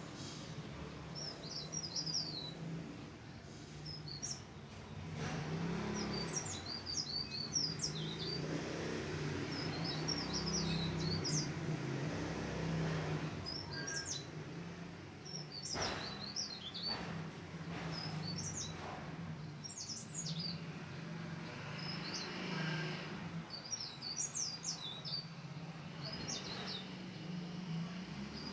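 A cikrak daun leaf warbler singing short, rapid, high chirping phrases, one every second or two, over a steady low hum.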